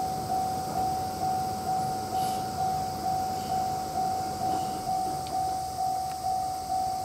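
Japanese railway level-crossing alarm ringing: a single bell tone struck about twice a second, each stroke fading before the next, in an even, unbroken rhythm. It is the warning that a train is about to cross.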